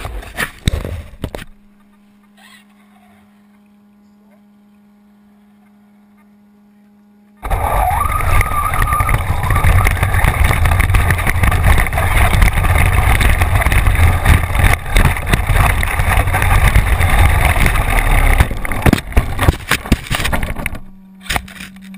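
Onboard audio from a Team Associated SC10 4x4 electric RC short-course truck on a dirt track. After a few quiet seconds with only a faint steady hum, it sets off about seven seconds in with a brief rising whine, then runs loud with chassis rattle, tyre and gravel noise and wind on the body-mounted camera, dropping back to the faint hum about a second before the end.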